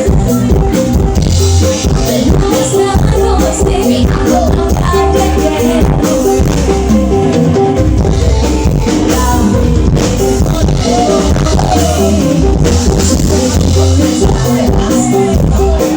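Dangdut koplo band playing loud through a big sound system, with heavy bass and a driving drum beat.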